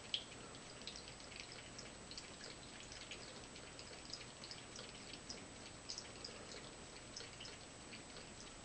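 Long-haired cat drinking by dipping a paw into water and licking it off her fur: faint, irregular small wet licks and drips, several a second, with one sharper click just after the start.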